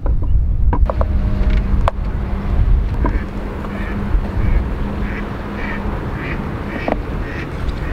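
Bread being set onto the metal plate of a hot sandwich maker, with a few light clicks and knocks in the first two seconds, over a steady low wind rumble on the microphone. From about three seconds in, short high calls repeat about twice a second in the background.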